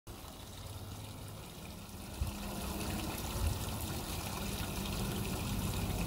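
Water trickling over the stones of a rocky stream channel, a steady hiss, with gusts of wind rumbling on the microphone.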